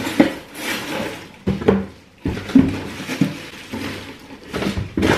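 Packaging handled as a rice cooker is unpacked from its cardboard box: cardboard and plastic wrap rustling, with a few knocks.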